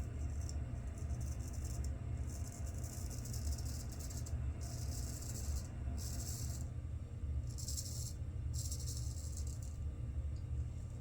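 Straight razor strokes cutting about a day's stubble through a wet lather. Each stroke is a crisp, scratchy scrape, about half a second to two seconds long, in a run of five or so starting about two seconds in.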